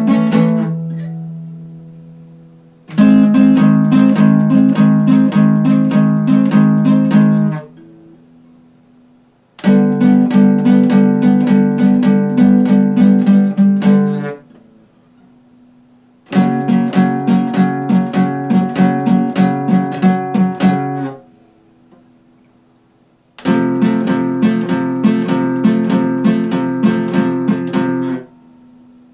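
Epiphone acoustic guitar strummed in four passages of quick, even strumming, about four strokes a second, each passage about four and a half seconds long. Between passages the last chord rings on and fades away for about two seconds.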